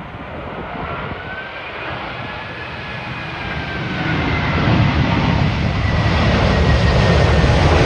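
British Airways Airbus A380's four Rolls-Royce Trent 900 turbofans passing low overhead on landing approach: a whistling engine whine that slides down in pitch over a rushing jet roar, with a deep rumble that grows louder about halfway through as the aircraft comes closest.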